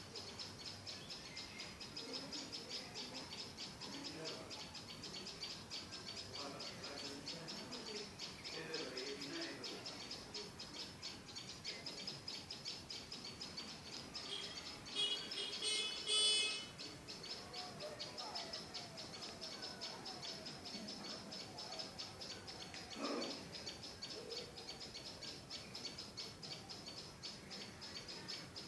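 Steady, fast high-pitched chirping runs all the way through, with one louder call about fifteen seconds in.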